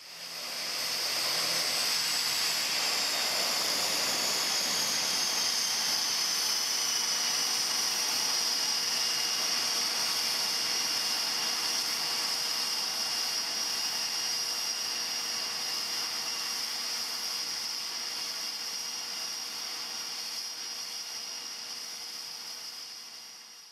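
Aircraft turbine engine running on the ground, a steady high-pitched whine that slides slowly down in pitch over the first several seconds and then holds. It fades in at the start and fades out near the end.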